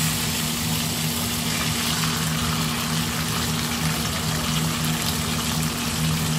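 Oil sizzling steadily around a whole marinated chicken pan-frying in a kadai on medium flame, about ten minutes into cooking. A steady low hum runs underneath.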